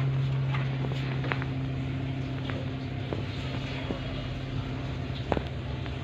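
A steady low motor hum, with a few light clicks of parrots' beaks and feet on a wire cage as they eat.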